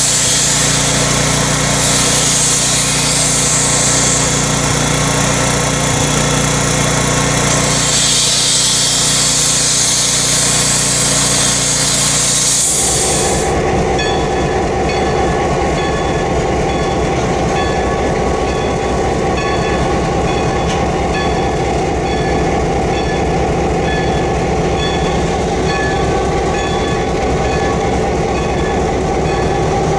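Steam locomotive venting steam with a loud, steady hiss over a low steady hum. About thirteen seconds in the sound changes abruptly to a steadier drone with much less hiss, from a locomotive standing further off.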